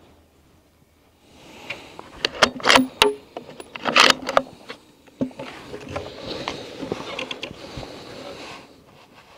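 Bolt of a Howa 1500 Superlite bolt-action rifle being worked after a shot: a quick series of sharp metallic clicks and clacks about two to four seconds in, followed by a few seconds of rustling handling noise.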